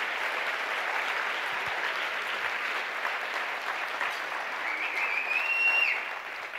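Audience applauding steadily, thinning out near the end, with a high whistle held for about a second from just under five seconds in.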